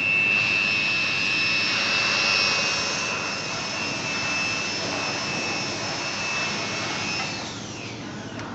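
1500 W fiber laser welding machine running: a steady high whine over a hiss, which falls in pitch and fades about seven and a half seconds in.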